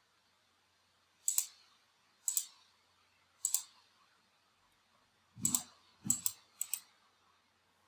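Computer mouse buttons clicking six times at irregular intervals, the last three in quicker succession.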